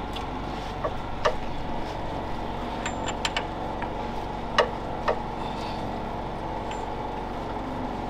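A steady machine drone with about six sharp metallic clinks and knocks scattered through it, as steel hand tools work on the bolts of a manure auger's hanger-bearing plate.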